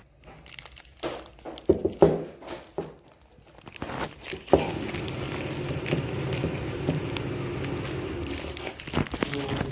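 Yamaha R15 V3's single-cylinder engine starting with a sharp crack about four and a half seconds in, then running at idle with a steady ticking crackle, after a few seconds of scattered clicks and knocks. The crackle is the engine noise fault being diagnosed.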